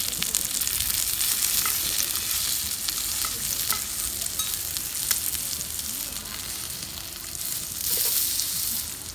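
Food frying in a hot pan: a steady sizzle with scattered small pops, swelling briefly near the end.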